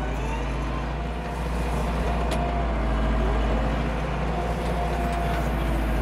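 Landini Blizzard 65's Perkins 4.0-litre four-cylinder diesel running steadily, heard from inside the tractor's cab, with a single sharp click a little over two seconds in.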